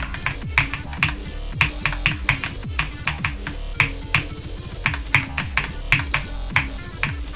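Electronic music track: deep bass notes that slide down in pitch over and over, with sharp snapping clicks about two to three times a second on top.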